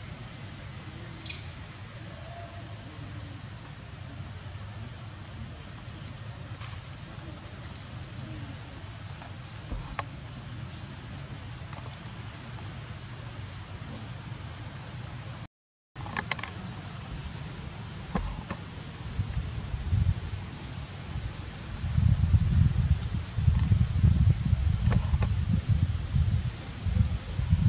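Steady, high-pitched insect chorus, a continuous shrill drone that cuts out for a split second about halfway. Bouts of low rumbling noise come in over it in the last few seconds and are louder than the insects.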